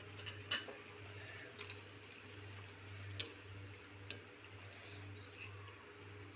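Metal spoon stirring paneer into a simmering curry in a metal pan, with a few sharp clicks of the spoon against the pan over a low steady hum.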